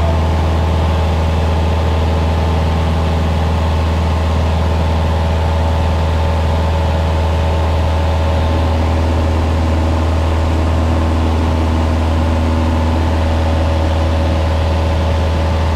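Cabin noise of a Cessna 172 in cruise flight: the piston engine and propeller make a loud, steady drone with a deep hum and a few steady higher tones, holding an even pitch.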